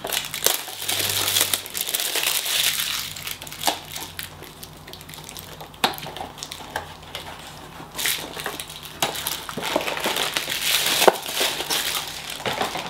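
Small cardboard blind box being torn open with crinkling and tearing of its packaging, then the foil bag inside crackling as it is handled near the end. The crinkling comes in dense stretches with sharp clicks, with a quieter spell in the middle.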